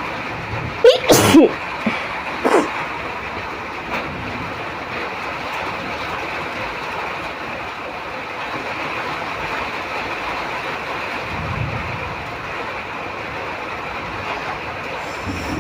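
A person sneezes loudly about a second in, followed by a shorter, fainter burst a moment later, over the steady hiss of rain falling.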